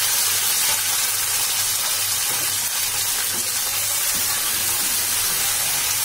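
Chopped tomatoes, onion and green chillies sizzling in hot oil in a non-stick kadhai, with a steady hiss, while a wooden spatula stirs them. They are being fried only lightly, until the tomatoes soften.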